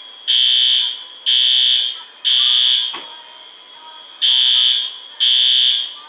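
Building fire alarm sounding the temporal-three evacuation pattern: three high-pitched beeps about a second apart, a pause, then three more.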